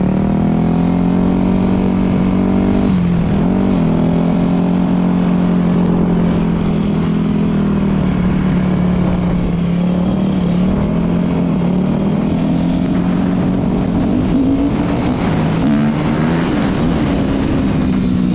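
Yamaha YZ250 two-stroke dirt bike engine running while ridden. Its pitch drops sharply about three seconds in, then rises and falls with the throttle and gear changes. Wind rushes low over the microphone.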